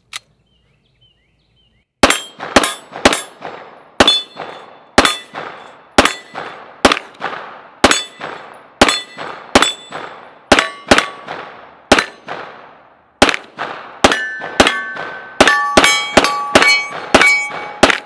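Rapid pistol fire from a Taran Tactical STI Combat Master 2011 9mm, starting about two seconds in at roughly two shots a second and quickening near the end. Steel targets ring with bright metallic tones as they are hit.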